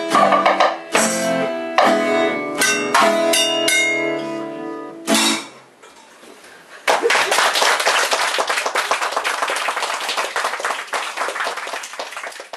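A live band of acoustic guitar, hand drums and melodica plays the closing bars of a song, with strums and drum hits over held notes, ending about five and a half seconds in. After a short pause the audience applauds.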